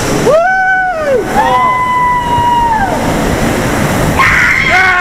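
Water rushing as a rider slides down an enclosed plastic water-slide tube. Two long held yells, each rising, held and then dropping, come in the first three seconds, and a shorter shout comes near the end.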